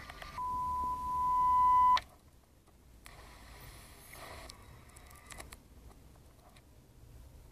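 A single steady high electronic beep tone that swells louder for about a second and a half and then cuts off abruptly. It is followed by a few faint clicks.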